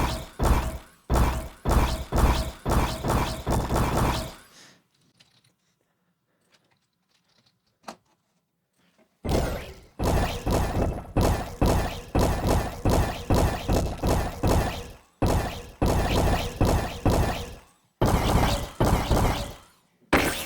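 A rapid run of designed impact sound effects triggered one after another from a sampler, about two to three a second, each a sharp, crunchy hit with a short decay. About four seconds in they stop for roughly five seconds, broken by a single click, then start again.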